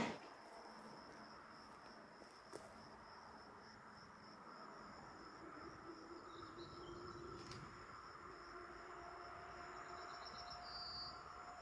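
An insect trilling steadily at a high pitch in an even pulse over faint outdoor background noise, with a few short high chirps about six seconds in and again near the end.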